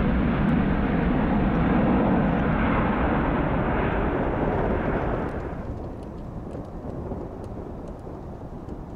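Jet engines of a departing Airbus A330 airliner roaring as it climbs away after takeoff. The roar loses its high end and drops to a duller, distant rumble about five and a half seconds in.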